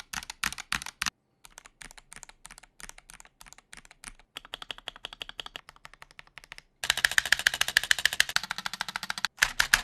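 Mechanical keyboard switches pressed key by key, giving series of separate clacks a few a second. About seven seconds in comes a burst of fast typing, the loudest part.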